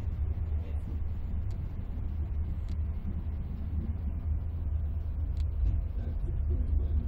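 Steady low rumble of a moving passenger train heard inside a first-class compartment coach (type 156A), with a few faint ticks.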